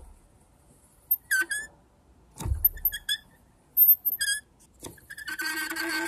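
Worn refrigerator condenser fan motor spun by hand, its failing bearings squealing: a few short high-pitched squeaks, then from about five seconds in a steady squeal as the blade spins faster. This obnoxious squeal is the sign of worn-out fan motor bearings, the common cause of a screeching refrigerator.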